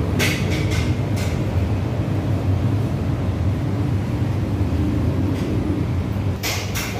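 Steady low background rumble, with a few short sharp clicks just after the start and again near the end.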